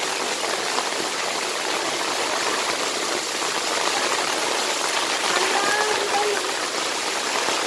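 Heavy rain falling steadily, a dense even hiss; faint children's voices come through about five to six seconds in.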